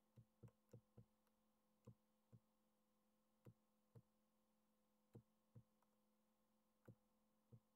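Near silence broken by about a dozen faint, short clicks at uneven intervals, often in pairs: a computer mouse's scroll wheel turning notch by notch as a flyer is scrolled on screen. A faint steady electrical hum lies underneath.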